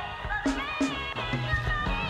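Music with a melody over a steady drum beat.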